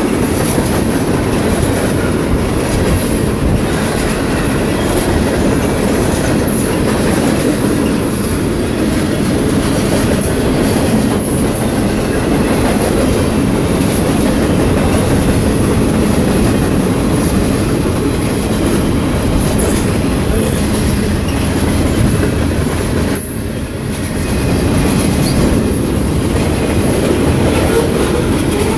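CSX freight train cars rolling past at speed: a steady, loud rumble of steel wheels on the rails, with scattered clicks and a brief lull about 23 seconds in.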